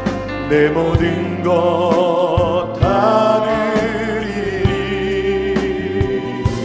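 Live worship band playing a Korean gospel praise song: several singers with vibrato over electric guitar and keyboard, with a steady beat.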